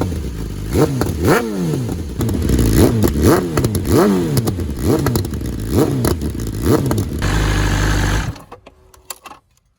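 Kawasaki ZX10R's inline-four engine blipped in a string of quick revs, each rising sharply and dropping back to idle, then idling briefly before it is shut off suddenly about eight seconds in.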